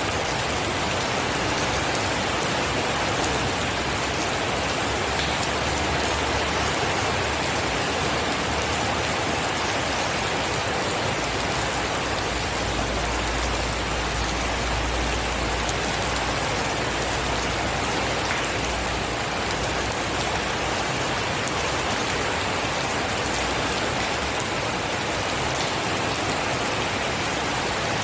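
Steady heavy rain, an even, unbroken hiss, with a low rumble swelling for a few seconds midway.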